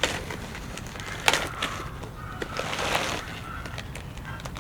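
Rummaging through a clutch kit's box and packaging: a few sharp knocks and clacks of parts being handled, with a stretch of rustling about two and a half seconds in.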